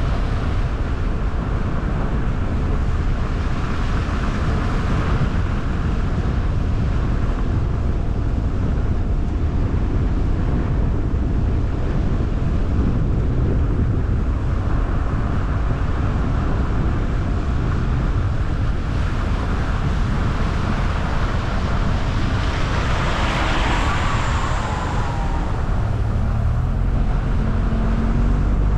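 Car driving at a steady speed: continuous tyre and road noise with a low rumble and some wind. About 23 seconds in it briefly gets brighter, with a short falling whine.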